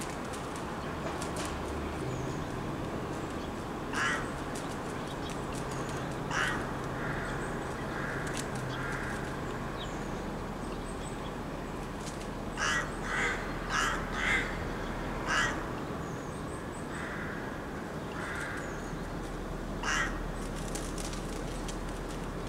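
Rooks cawing at their nests: single harsh caws spaced several seconds apart, with a run of about five caws in quick succession a little past halfway, and softer calls between. A steady low background rumble runs underneath.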